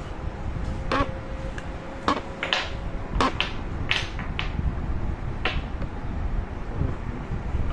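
Wooden Jenga blocks clacking against each other and the tabletop as they are picked up and stacked: about seven sharp knocks spread over several seconds, over a steady low background noise.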